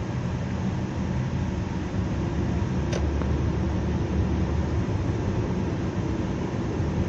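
Car cabin noise while driving in traffic: a steady low engine and road rumble, with one short click about three seconds in.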